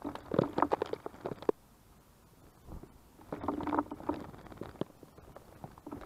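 Tits (great tits and blue tits) bathing in the shallow water of a bin-lid bird bath, flicking their wings to splash: a burst of rapid splashing at the start, and another about three seconds in.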